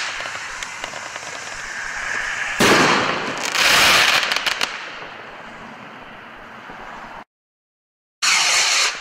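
Consumer firework rocket climbing with a rushing hiss and light crackle, then bursting with a sudden bang about two and a half seconds in and a second, longer crackling burst a second later that slowly fades. After a second of silence, a loud rush of another rocket launching starts near the end.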